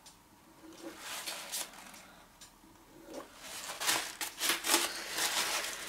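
Light rustling and crinkling of a paper tissue handled in a gloved hand. The rustles are scattered at first and come thicker from about four seconds in.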